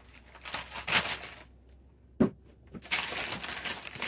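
Paper wrapping around a stack of comic books being handled and pulled open: scattered crinkles and rustles, one sharp knock a little over two seconds in, then crinkling picks up near the end.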